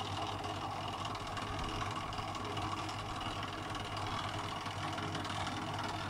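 LG front-loading washing machine's drain pump humming steadily while the machine tries to pump out before the spin, without moving the water: the owner says the pump has no pressure left, the fault behind the machine's OE (drain) error.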